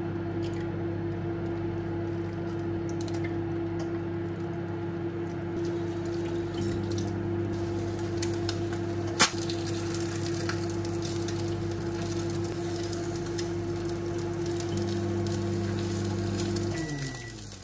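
Induction hob humming steadily while eggs fry in a pan, with a faint sizzle and a few light clicks of utensils. Near the end the hum drops in pitch and stops, followed by a short high beep.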